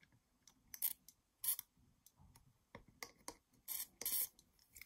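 Aerosol lubricant spray can hissing in about five short spurts, the last two a little longer, as lubricant is sprayed into the moving parts of a knitting-machine carriage.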